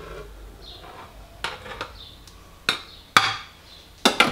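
A glass measuring jug knocked several times against the rim of a stainless-steel mixing bowl to shake out the last of the flour: about six sharp, irregular knocks, the last two close together near the end.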